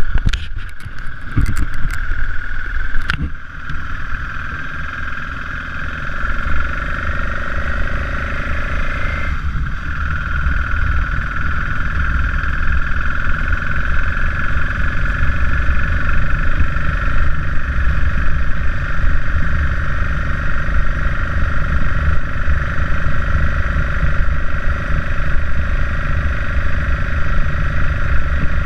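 BMW F650GS motorcycle engine running steadily while riding, under heavy low wind rumble on the camera's microphone. A few sharp knocks in the first three seconds come from handling the camera. The engine note dips briefly about nine seconds in, as at a gear change.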